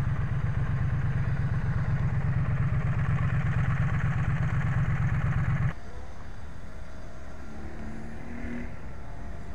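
Triumph Street Twin's 900 cc parallel-twin engine idling with a steady low pulse, then switched off about five and a half seconds in, its sound cutting out at once.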